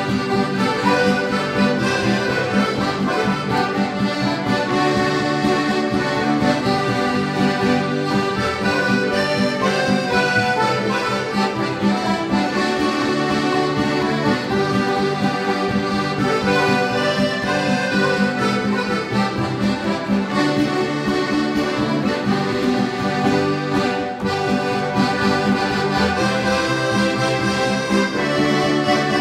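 An ensemble of karmoškas, small Estonian diatonic button accordions, together with a piano accordion, playing a folk dance tune in unbroken chords and melody.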